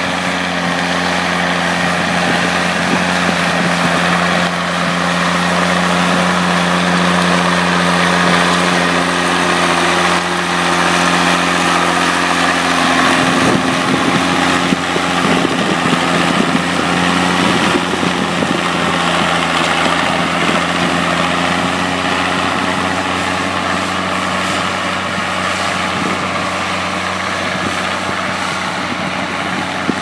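Massey Ferguson 1200 articulated tractor's six-cylinder diesel engine running steadily under load while pulling a semi-mounted plough through the soil. The engine note shifts about 13 seconds in.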